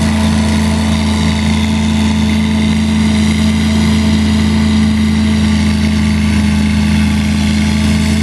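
Amazone Profihopper self-propelled mower's engine running steadily, a constant hum at even pitch while the machine mows.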